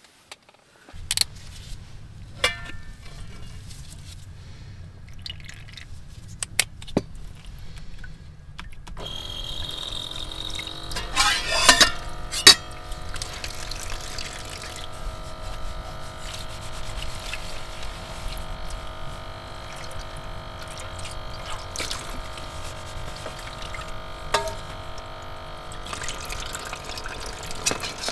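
Water running from a small pump-fed camp faucet into a plastic wash basin as dishes are washed by hand, the flow starting about nine seconds in with the faucet pump's steady hum under it. Dishes clink sharply a few times soon after the water starts.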